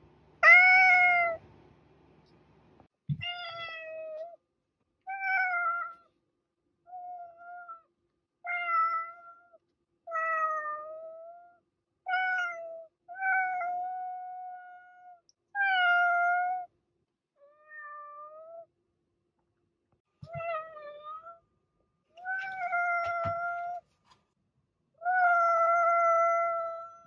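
Domestic cats meowing again and again: about a dozen separate meows, each a second or so long, roughly one to two seconds apart. The last meow is the longest, at about two seconds.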